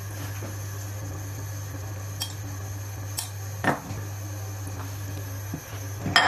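A metal spoon spreading chopped onion and tomato topping over a slice of bread on a wooden board, giving a few light clicks and one louder knock a little past the middle, over a steady low hum.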